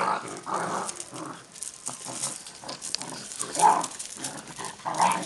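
Several dogs making play-fighting noises as they wrestle, with louder cries about three and a half seconds in and again near the end.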